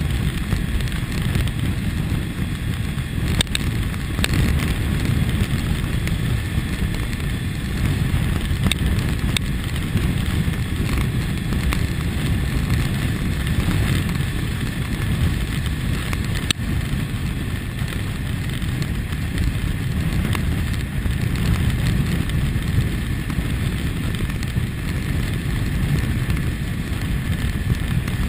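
A 2001 Kawasaki ZX-6R under way at a steady pace, recorded on the bike: a constant low rush of wind buffeting and road noise with the inline-four engine running underneath, no revving up or down.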